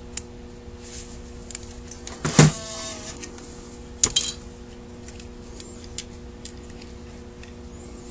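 Clicks and knocks of a Carter WA-1 carburetor's metal parts being handled during disassembly, with one louder clatter about two and a half seconds in and a sharp click about four seconds in, over a steady low hum.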